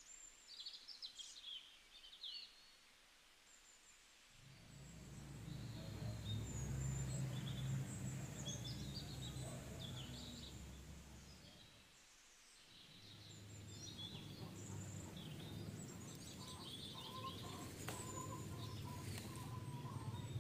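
Small birds chirping and twittering in short, repeated calls over a steady low hum. The hum starts about four seconds in, drops out for a moment near the middle, and returns.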